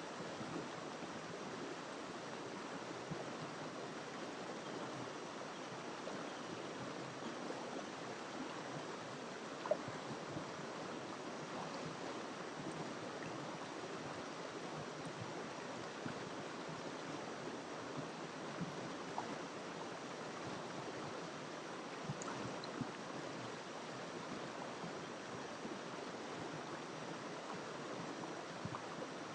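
Tegale Talibeng River flowing: a steady rush of water with a few sharp ticks, the loudest about ten seconds in.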